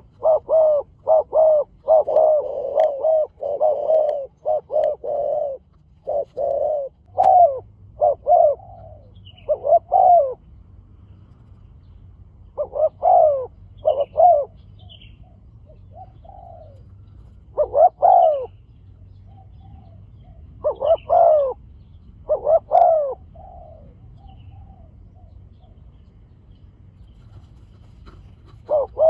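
Spotted doves cooing: a fast run of coos through the first six seconds or so, then separate coo phrases every two to four seconds. Faint high chirps of small birds sit underneath.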